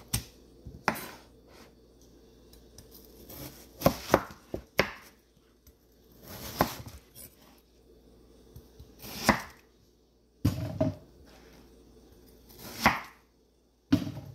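Large kitchen knife cutting watermelon on a wooden cutting board: about ten separate cuts and knocks, each stroke swelling briefly and ending sharply as the blade meets the board, with a couple of duller thumps.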